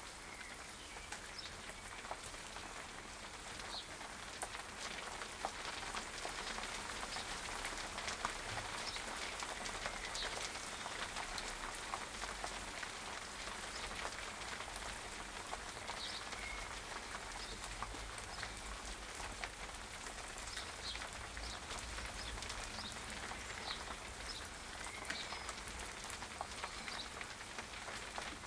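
Steady rain pattering on a garden pond and its stones, with many small drop ticks, and the light splashing of house sparrows bathing in the shallows. A few short high chirps sound now and then.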